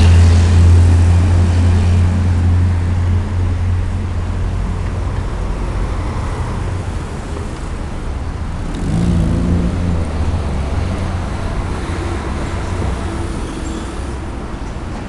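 Road traffic: vehicle engines running close by, with a heavy vehicle's low, steady rumble loudest at the start and slowly fading, and another engine passing about nine seconds in.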